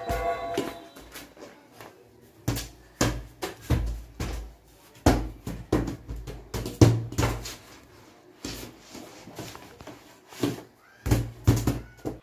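A rubber ball bouncing on a tiled floor and being hit with plastic paddle rackets: irregular thuds and smacks, some in quick pairs.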